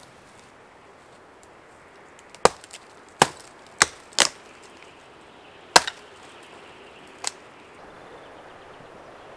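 Dry dead branches snapping as they are broken off a dead tree by hand: six sharp wooden cracks, irregularly spaced over about five seconds.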